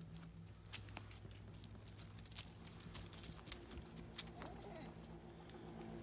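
Faint scattered ticks and light rustling over a low, steady hum.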